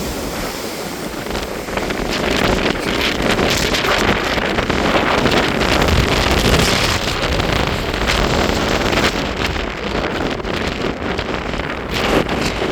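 Strong wind buffeting the microphone, with a rough sea surging and breaking below; the gusting noise grows louder about two seconds in.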